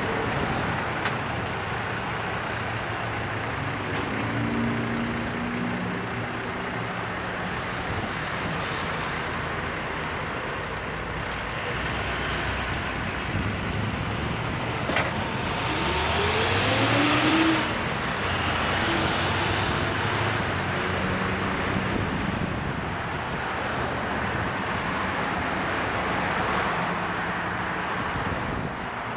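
Steady road traffic noise from cars and trucks passing and pulling away through a multi-lane intersection. About halfway through, one engine rises in pitch as it speeds up, the loudest moment.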